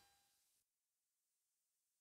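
Near silence: the sound drops out almost completely, with only a faint fading tail of the previous words in the first half-second.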